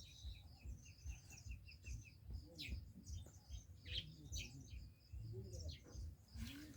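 Birds chirping and calling, faintly, with a quick run of short, evenly repeated notes in the first two seconds and scattered single chirps after it.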